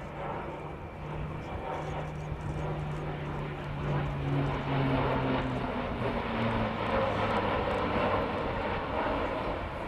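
Airbus A400M with four Europrop TP400-D6 turboprops flying past. The steady propeller hum grows louder, then drops in pitch about halfway through as the aircraft passes.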